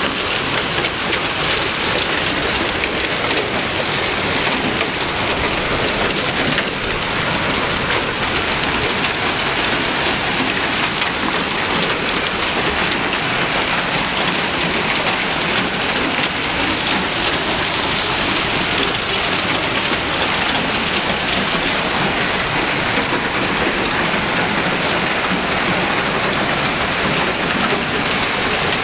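Heavy hailstorm with large hailstones and rain pelting the street and striking parked car bodies: a loud, steady, dense patter of countless small hits.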